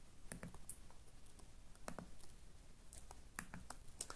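Keypad buttons of an AGM M6 rugged feature phone being pressed one at a time while typing a text message: several faint, irregularly spaced clicks, some coming in quick pairs and triples.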